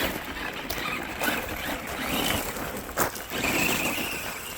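Small electric motor of an ARRMA Granite Voltage 1/10-scale RC monster truck (20-turn 540 motor) whining as the truck is driven, rising and falling with the throttle. A sharp knock comes about three seconds in.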